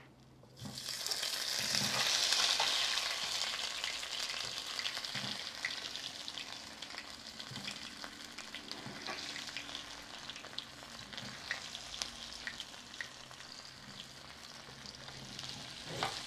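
Potato pieces frying in hot oil in a clay cazuela. The sizzle flares up about half a second in as the potatoes go in, then settles into steady frying, with light clicks from a spatula stirring.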